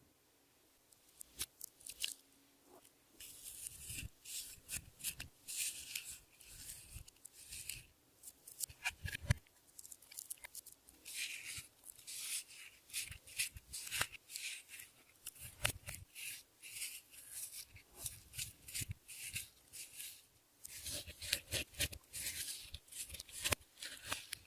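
Clear slime being squeezed and stretched by hand, making irregular sticky crackles and small clicking pops. Only a few clicks for the first few seconds, then a dense run of them.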